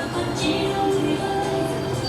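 Background music with held tones.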